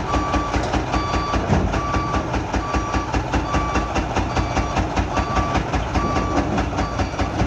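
Truck engine running with a loud, rapid, even knocking, which the owner takes for a broken engine. A back-up alarm beeps steadily over it, about once a second.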